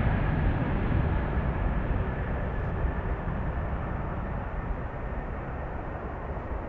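Boeing 787-8 jet engines at takeoff thrust during the takeoff roll: a steady deep roar that slowly fades as the airliner accelerates away down the runway, with a faint high whine that dies out early.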